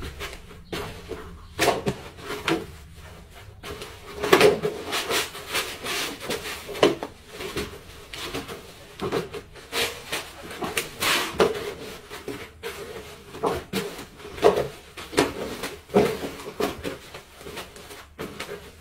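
Gloved hands kneading and scrubbing a fishing net in a plastic basin of tung oil mixed with gasoline, irregular rubbing and sloshing strokes of uneven loudness. The net is being worked so its twine soaks up the oil.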